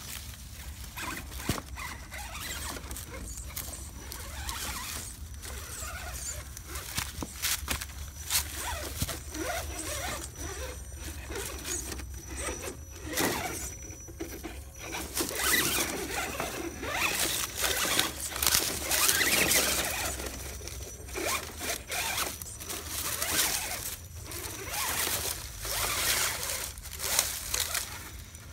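Electric RC rock crawler crawling over rocks and dry leaves: the motor and gears whine and grind while the tyres scrabble and scrape on stone and crunch through leaves, louder around the middle.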